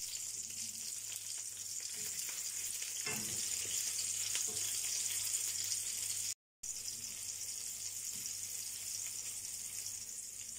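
Flour-coated meat cutlets sizzling steadily in hot sunflower oil in a frying pan, with a few light scrapes of a fork turning them. The sound cuts out briefly about six seconds in.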